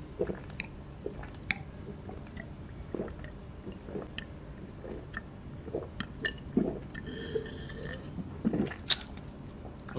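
Close-miked swallowing and gulping as a man drinks from a glass jar, with small wet mouth noises and irregular faint clicks.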